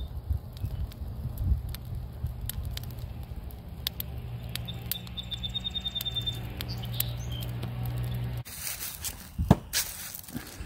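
Dry burdock stalks burning in a fire pit, crackling with many sharp pops over a low steady hum, with a short high trill midway. Near the end the crackling and hum stop and a single loud sharp knock sounds.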